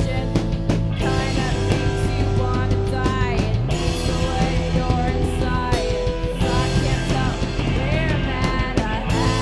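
Indie rock band playing live, loud and steady, with a Fender Stratocaster electric guitar and a four-string bass guitar.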